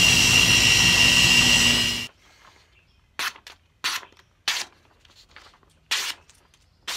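Belt grinder running with a steady high whine as a knife edge is sharpened on the slack belt, ending abruptly about two seconds in. Then a freshly sharpened knife slices through a sheet of paper in several short, crisp cuts.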